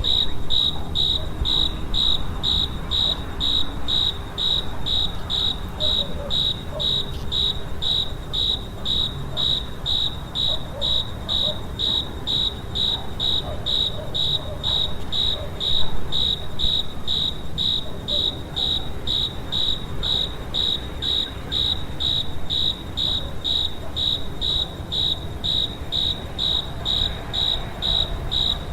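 A cricket chirping steadily: a high-pitched chirp repeated at an even rhythm, a few chirps a second, over a faint low rumble.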